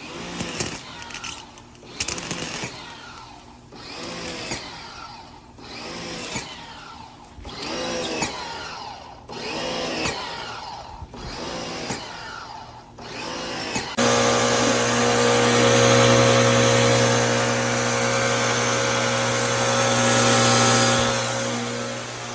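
Electric pressure washer running and spraying. For the first part it comes in repeated surges about every second and a half, each rising and falling. About two-thirds of the way through it settles into a steady, louder run with a constant motor hum under the spray.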